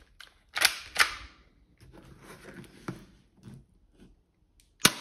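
Tokyo Marui Automag III spring airsoft pistol being cocked, its slide pulled back and let go with two sharp clacks about a second in, then light handling clicks, and one sharp shot near the end.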